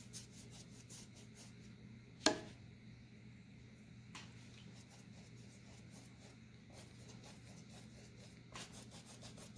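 Paintbrush stroking over a canvas panel, a faint repeated rubbing as acrylic paint and glazing medium are blended in. One sharp knock about two seconds in.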